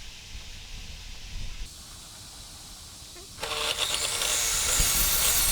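Table saw motor switched on about three and a half seconds in, coming up suddenly to a loud, steady whine with a high ringing tone. Before that there is only a faint rumble and hiss.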